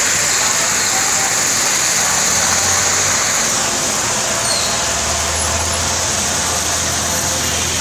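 Heavy rain falling on a flooded street, a steady hiss, while motor vehicles drive through the standing water. A low engine hum from a passing truck or bus comes in about halfway through.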